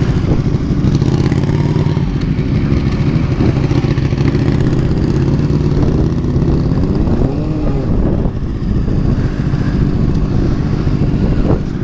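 Motorcycle engine running steadily as the bike rides along, with one brief rise and fall in pitch about seven seconds in.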